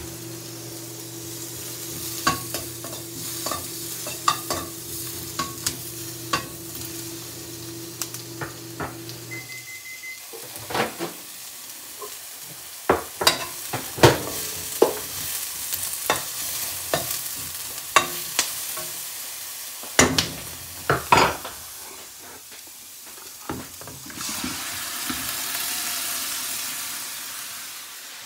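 Sliced red onion and garlic sizzling in a frying pan while a metal spoon stirs them, clacking and scraping against the pan many times. A steady low hum stops with a short beep about a third of the way in.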